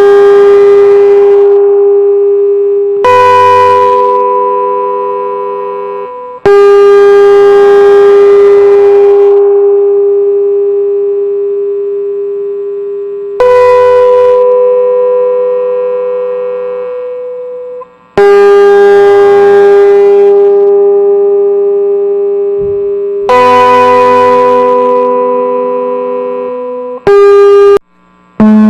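Instrumental music: a series of long single notes, each struck sharply and left to ring and slowly fade for several seconds, alternating between two close pitches. Two quick notes follow near the end.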